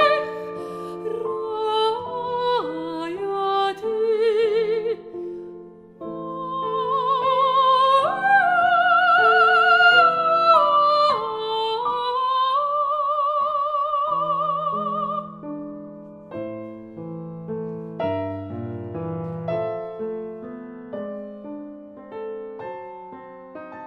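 Classical soprano singing a modern Hebrew art song with wide vibrato over piano accompaniment. The voice stops about two-thirds of the way through, and the piano goes on alone, growing softer toward the end.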